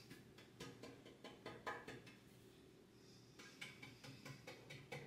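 Near silence, with faint, scattered light taps of a baking pan being tilted and shaken to spread a dusting of flour.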